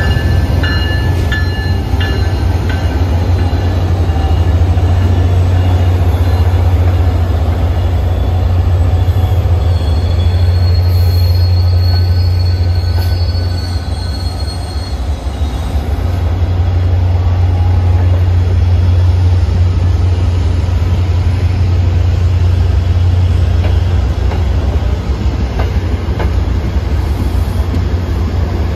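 MBTA commuter rail train passing at close range behind an F40PH-3C diesel locomotive: a steady low diesel drone with the coaches' wheels rolling on the rails. Thin, high wheel squeals come briefly near the start and again about ten seconds in.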